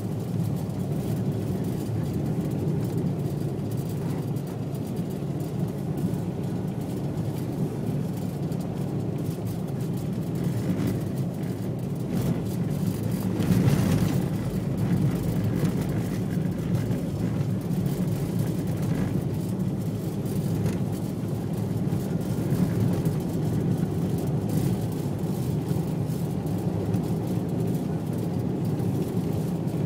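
Car driving at speed on a snow-covered road, heard from inside the cabin: a steady low rumble of tyres and engine, briefly louder about halfway through.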